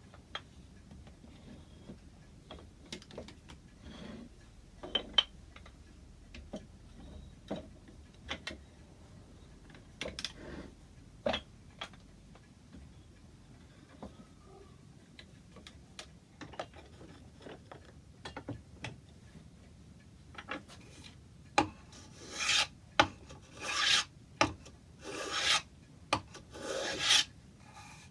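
Light scattered knocks and clicks of handling wood, then a steady run of abrasive hand strokes on wood, about one a second, like rasping or sanding the clock case's timber.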